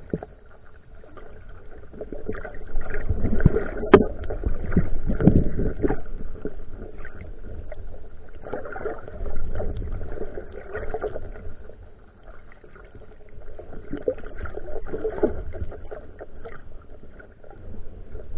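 Muffled underwater sound heard through a camera's waterproof housing: water sloshing and swirling in uneven swells over a faint steady tone, with a few dull knocks about four to five seconds in.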